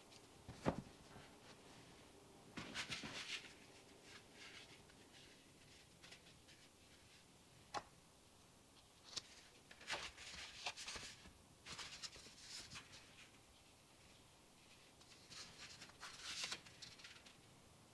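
Faint handling sounds: a couple of sharp taps and several bursts of paper rustling and crinkling as a folded paper leaflet is opened out.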